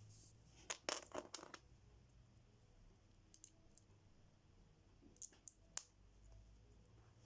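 Small hard plastic Lego pieces clicking and clattering as they are handled: a quick run of clicks early on, a few faint ticks, then three sharp clicks about five to six seconds in.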